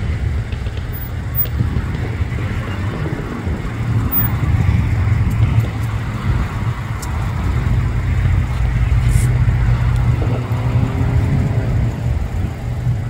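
Boeing 747 jet engines heard from a distance as the airliner lands: a steady low rumble that swells through the middle, mixed with road traffic. A brief, slightly falling tone comes near the end.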